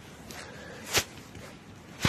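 Footsteps on a wet paved path, with one sharp step about a second in and fainter steps around it.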